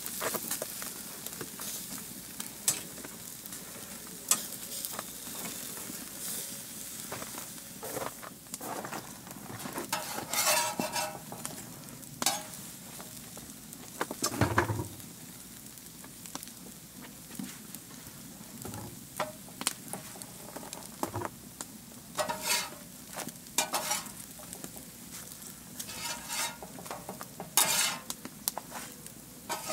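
Open wood fire crackling with frequent sharp pops under a steady sizzle of food cooking, first pork ribs on the grill grate and then tortillas on a steel griddle. A metal spatula scrapes the hot steel several times in the second half, and there is one dull thump about halfway.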